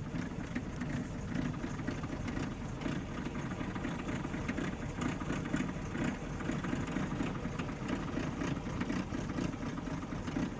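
Military truck engine idling steadily, an even low rumble with no launches or blasts.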